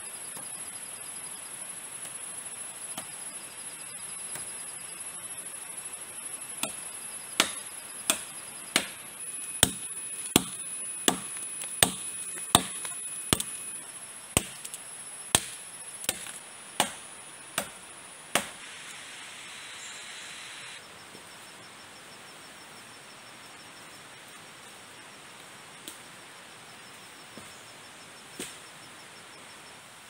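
Chopping wood with a blade: about sixteen sharp strokes at a little more than one a second, then a pause and a few fainter knocks near the end. High insect trilling runs steadily behind.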